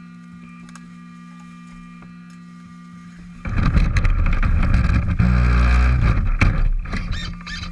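Radio-controlled rock crawler: a steady electric hum while it stands still, then about three and a half seconds in it drives off loudly, electric motor and gears whining as the tyres work over dry leaves and rock.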